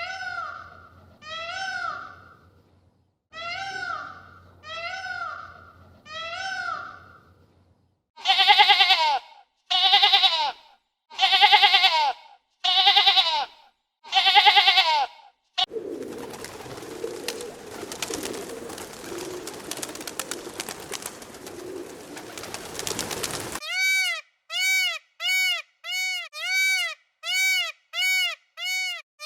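Animal calls of several kinds, one after another. First come repeated calls, then five loud calls, then a noisy stretch of about seven seconds, then rapid evenly spaced calls about one and a half a second.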